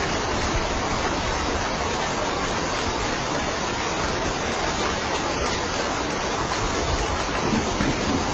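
Steady heavy rain, an even hiss with no breaks, with a low rumble swelling near the end.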